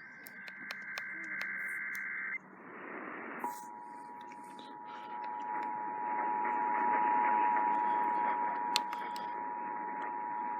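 Emergency Alert System tones received over a hissing radio signal: a burst of buzzing SAME digital header tones cuts off about two and a half seconds in, and about a second later the steady two-tone EAS attention signal starts and holds.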